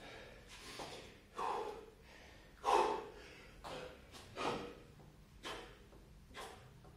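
A man breathing hard during a set of three-pump burpees: sharp, noisy exhalations and gasps about once a second.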